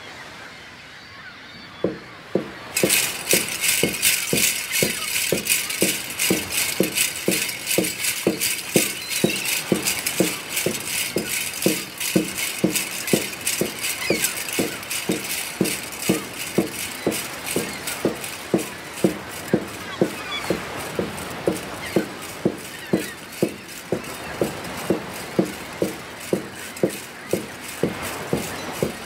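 Instrumental intro of a song led by hand percussion: a steady rattling, jingling rhythm with a beat about twice a second, coming in about two seconds in.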